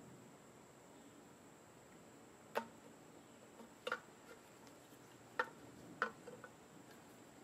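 Four sharp clicks at uneven spacing, with a few fainter ticks, from hand work on a Briggs & Stratton small-engine carburetor as the old plastic primer bulb is worked out.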